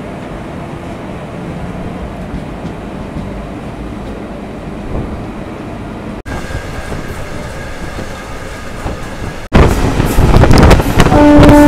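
A moving local passenger train carriage: a steady rumble and clatter of wheels on the track. About nine and a half seconds in the sound jumps much louder, and near the end a loud steady tone sets in.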